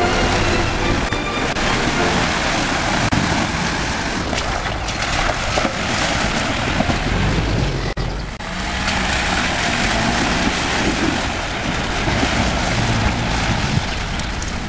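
Jeep Wrangler driving through a shallow stream: its engine runs under the loud rush and splash of water pushed aside by the wheels. The sound dips briefly about eight seconds in.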